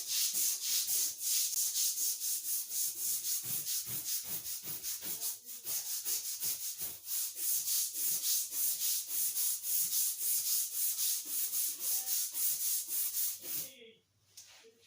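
A brush scrubbing the non-slip safety floor covering with quick, even back-and-forth strokes, about three a second. The strokes stop shortly before the end.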